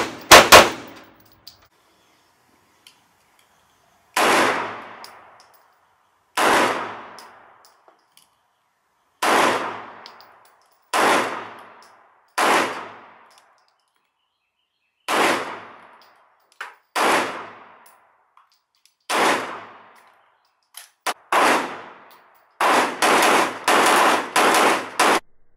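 Shots from an STI 1911 9 mm pistol on an indoor range, each with a ringing echo: single shots a second or two apart, then a quick string of about six shots near the end.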